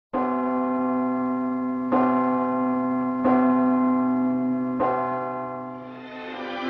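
A large bell tolling four times, each stroke ringing on into the next, as in the old Liberty Films studio logo. The ringing fades, and music begins near the end.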